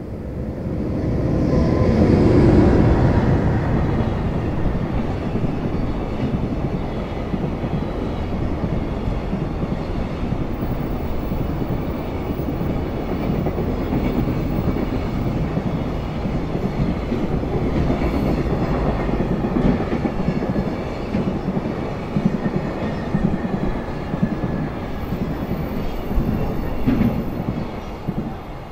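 Freight train passing: loudest about two seconds in, then a long steady rumble of wagons with the clickety-clack of wheels over rail joints, dying away near the end.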